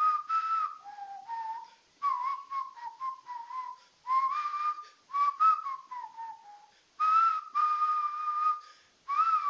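A person whistling through the lips: a run of short phrases with sliding and stepping pitch, each starting abruptly and broken by brief silences.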